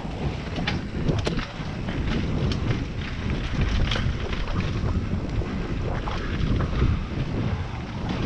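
Wind buffeting the camera microphone of a mountain bike ridden fast on dirt singletrack, over the rumble of the tyres on the trail, with sharp rattles and clicks from the bike over bumps several times.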